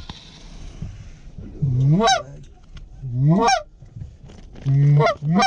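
Canada goose call blown by a hunter, sounding four honks. Each one swells up from a low note and sweeps sharply up in pitch to a high break. The first comes about a second and a half in and another about a second later, and the last two come close together near the end.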